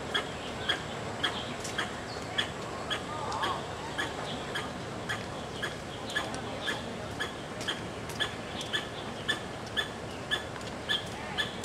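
Short, high chirps repeated evenly about twice a second: a small animal's call.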